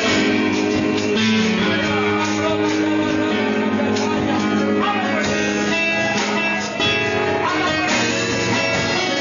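Live church worship band playing a praise song: guitar with a drum kit, held chords and steady beats.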